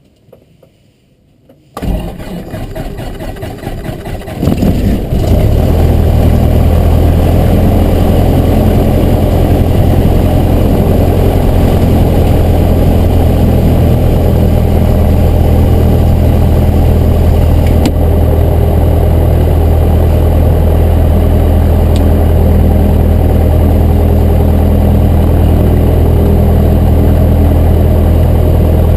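Cessna 172's piston engine being started: the starter cranks it for a couple of seconds, it catches about five seconds in, and then it runs steadily.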